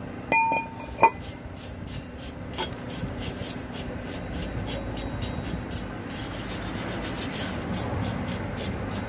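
A metal brake drum clanks with a short ring twice in the first second. Then a plastic-bristled brush scrubs brake dust off the drum-brake shoes and backing plate in quick, continuous strokes.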